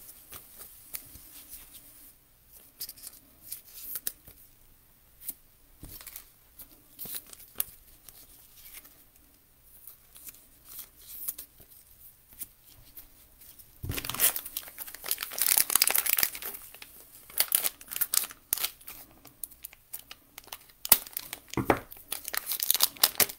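Donruss basketball trading cards being flipped through by hand, card sliding off card in soft scattered ticks and rustles. About two-thirds of the way in comes a louder stretch of rustling lasting a few seconds, and a few sharper ticks follow near the end.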